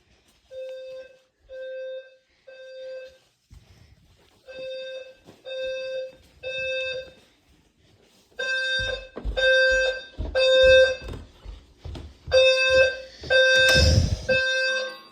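Fire alarm horn strobe sounding the temporal-three evacuation pattern: three half-second low-pitched blasts, then a pause of about a second and a half, repeating. About halfway through the horn grows louder and knocks and thumps join in, with a brief rustling burst near the end.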